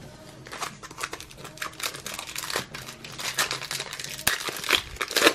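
Trading-card pack wrapper crinkling and being torn open, a dense run of irregular crackles that gets louder toward the end.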